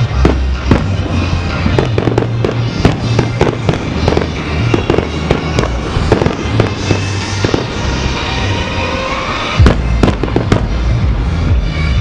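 Aerial fireworks going off in quick succession, a string of sharp bangs several a second, the loudest one about ten seconds in, over music with a heavy bass line.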